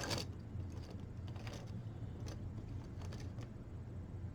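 Small clicks and rattles of 3D-printed plastic track links and a paper clip pin being handled as the links are joined, over a steady low hum.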